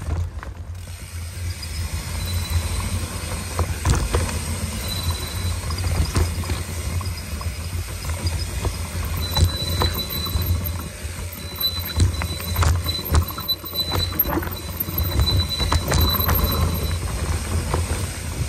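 Mountain bike riding fast down a rough dirt singletrack: a steady low rumble of wind and tyres, the bike rattling over roots and rocks with many sharp knocks, and a thin high squeal coming and going, mostly in the second half.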